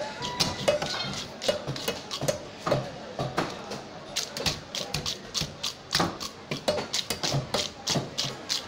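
Fish being sliced on a boti, a large curved blade fixed upright on a block: a busy run of taps and knocks, a few each second, as the pieces are cut and handled on the wooden board.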